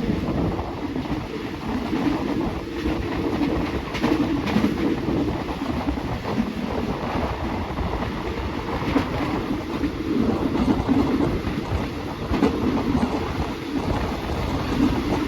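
Passenger train running along the track, heard from on board: a steady rolling rumble, with a few faint knocks from the wheels over the rails.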